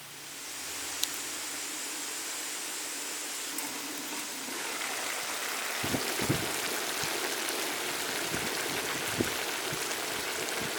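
Liquid sizzling and bubbling in a hot cooking pan: a steady hiss that builds over the first second, grows louder about four and a half seconds in, and gains bubbling pops from about six seconds on.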